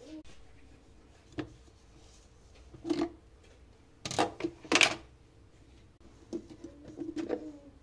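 Plastic lid and handle of an insulated hotpot being handled: a series of plastic clicks and knocks as the handle is lifted and the outer and inner lids are taken off. The loudest knocks come in a cluster about four to five seconds in.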